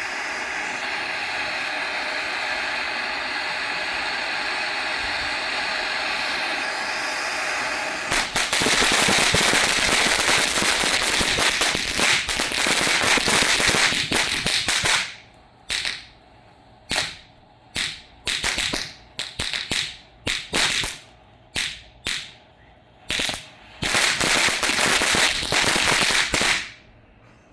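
Safe-and-sane Kong novelty fountain firework spraying. It gives a steady hiss for about eight seconds, then a louder crackle, then a dozen or so short spurts with gaps as it sputters out and stops near the end.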